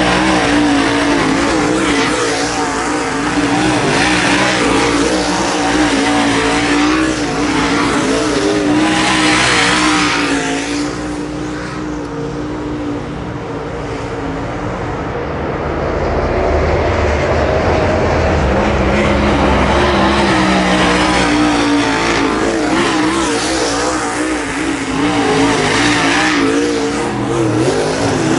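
Dirt late model race cars' V8 engines racing past on a dirt oval, the engine note swelling and falling as each car goes by. The sound eases for a few seconds around the middle, then builds again as the field comes back around.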